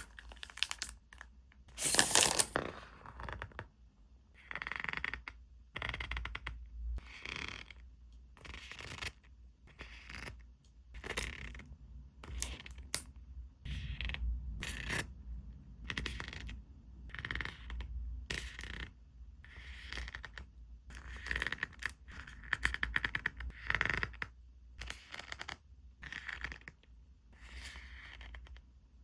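Hands unpacking and handling small stationery items and their packaging: irregular short rustles, scrapes and clicks, with one louder rustle about two seconds in.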